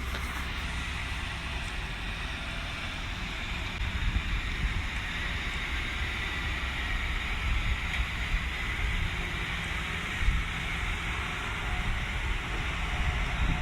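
1998 Jeep Cherokee XJ's 4.0 inline-six with a catless 2.5-inch side-dump exhaust and mini Cherry Bomb muffler, running at a steady pace with no revs, mixed with a steady noisy hiss.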